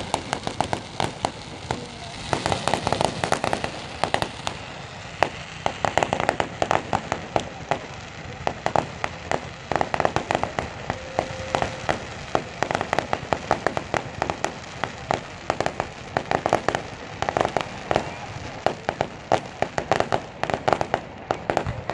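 Aerial fireworks bursting: rapid, dense pops and crackles, coming in thick clusters every second or two.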